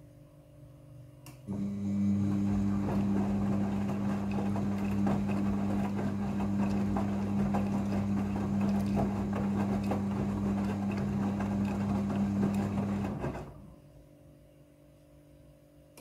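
Midea front-loading washing machine turning its drum during the rinse cycle: a click about a second in, then the motor hums steadily while the wet laundry and water slosh and tumble in the drum for about twelve seconds, before the drum stops.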